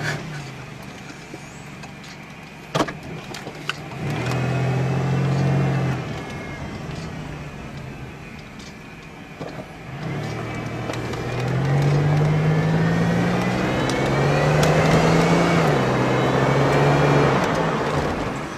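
Supercharged 3800 V6 of a Pontiac Grand Prix GTP with aftermarket headers, heard from inside the car under two accelerations: the engine note climbs, falls back, then climbs again with a whine rising along with it, and steps down at an upshift near the end. There is a sharp click about three seconds in.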